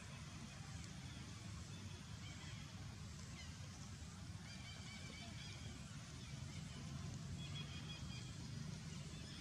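Faint outdoor ambience: a steady low rumble with scattered short, high animal calls, several of them in the second half.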